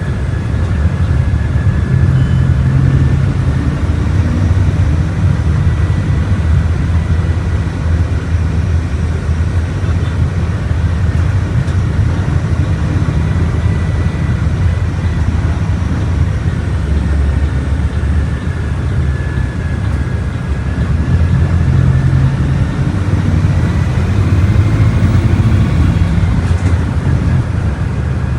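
Volkswagen Volksbus 17.230 Euro VI bus running on the move, a steady low diesel rumble with road noise that swells slightly twice, with a faint high whine above it.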